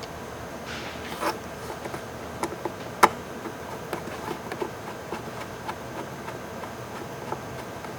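Small clicks and light scraping of hand tools and small screws on a laptop's plastic and metal cover as the screws are put back in, with a sharp click about three seconds in, over a steady background hiss.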